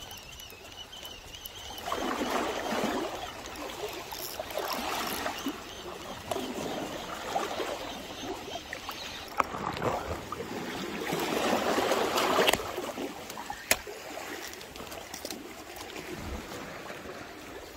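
Small sea waves washing in over the rocks of a seawall's riprap and draining back, rising and falling in several surges, with a couple of sharp clicks later on.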